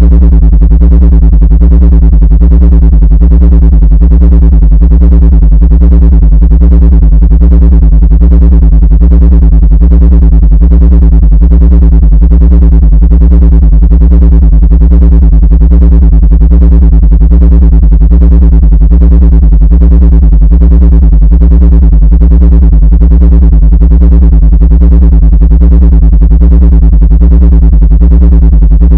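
Loud, unchanging electronic drone: a stack of steady low tones with a fast, even flutter, played as a supposed ant-repelling sound frequency.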